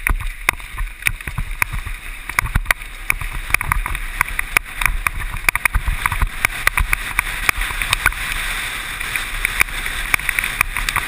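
Mountain bike riding fast down a rough trail: steady rushing noise of tyres and wind, broken by frequent sharp rattles and knocks from the bike over bumps.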